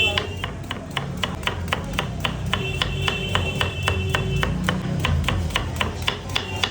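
A metal kitchen utensil striking rapidly and evenly, about four or five knocks a second, with a bright metallic ring on some stretches.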